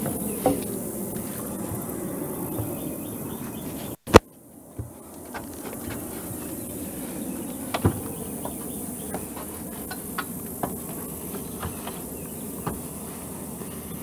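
Scattered light knocks and clicks of a wooden beam and a stepladder as the beam is carried up onto the frame, over a steady outdoor background with a high hiss of insects. One sharp, loud click about four seconds in.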